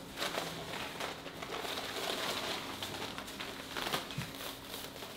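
Plastic grocery bags rustling and crinkling as they are carried, with scattered short crackles.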